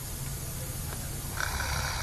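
Snoring: a low rattling snore, then about one and a half seconds in a hissing, airy breath.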